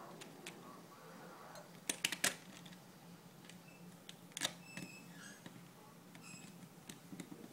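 Small sharp plastic clicks and taps from a speed cube being worked on with a screwdriver: a quick cluster of three about two seconds in and another single click a little after halfway, with fainter ticks between.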